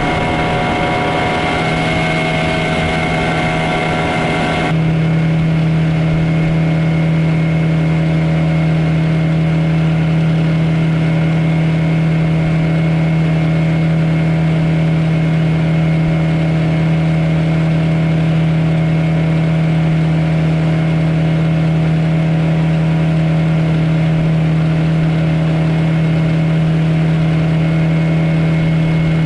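Suzuki 9.9 hp outboard motor running at full throttle, pushing a Kazanka aluminium boat along with water rushing at the hull; a factory throttle limiter may be holding the revs down. About five seconds in, the sound changes abruptly to a steadier, lower engine drone that holds to the end.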